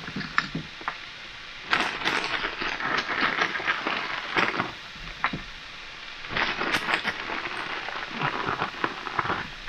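Hot skillet of chicken and potatoes crackling and spattering as frozen diced peppers and onions go in, in two spells of a few seconds each.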